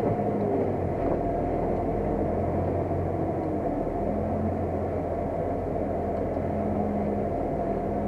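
New Holland T7050 tractor's six-cylinder diesel engine running at a steady pitch while ploughing.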